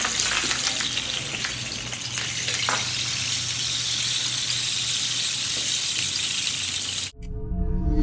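Rain sticks being turned, their pellets cascading inside in a dense, steady hiss like falling rain. The sound cuts off abruptly about seven seconds in.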